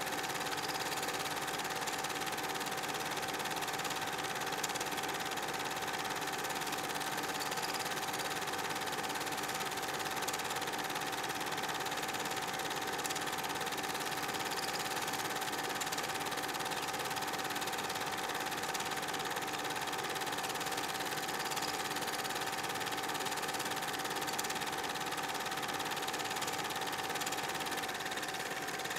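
Film projector running steadily: a constant mechanical whir and clatter with a steady hum-like tone, unchanging throughout.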